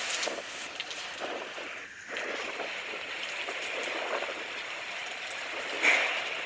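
Steady rushing noise of heavy cyclone rain and wind, with a brief louder burst near the end.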